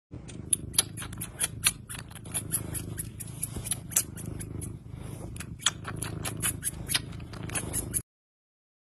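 Cat chewing on a person's thumbnail: many quick, irregular clicks and crunches of teeth on the nail, over a low steady rumble. The sound stops abruptly about eight seconds in.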